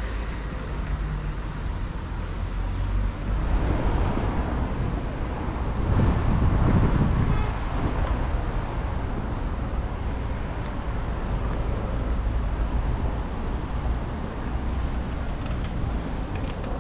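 Street traffic: a steady rumble of road noise, with a car passing close by about six to seven seconds in.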